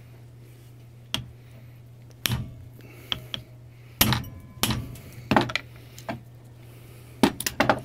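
Hammer blows on a hand impact driver seated in the stuck housing bolts of a gear-reduction starter motor: sharp metallic strikes about every second, closing with three quick strikes near the end, as the bolts are broken loose.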